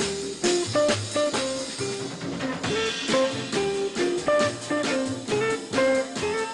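Jazz on an archtop electric guitar: a melody of separate picked notes, several a second, with a drum kit keeping time behind it.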